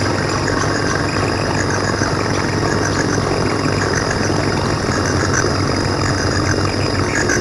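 Homemade synthesizer wired on a log, sounding through a loudspeaker: a steady low buzzing drone with quick high chirps scattered over it.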